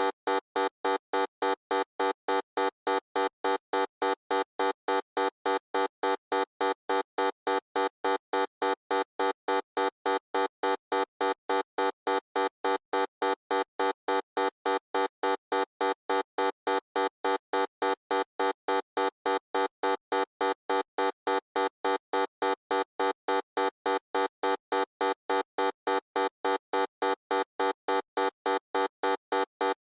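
Harsh electronic buzzer beeping in a fast, even on-off pattern, about three buzzes a second, a rasping tone full of overtones that never changes.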